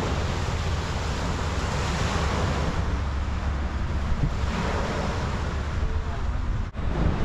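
Small sea waves breaking and washing onto a sandy shore, the wash swelling a couple of times, with wind rumbling on the microphone.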